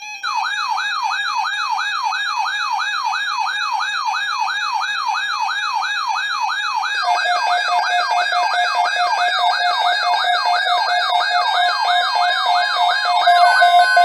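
Weather alert radios sounding their alarms on receiving an alert: a warbling siren at about three sweeps a second. A steady beeping tone joins about halfway through, and a higher beeping tone near the end, as more receivers go off.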